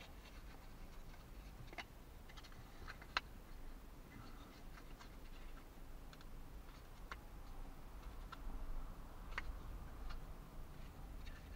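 Faint, scattered clicks and light taps of thin plywood kit pieces being handled and pressed together, tight-fitting joints. One sharper click comes about three seconds in.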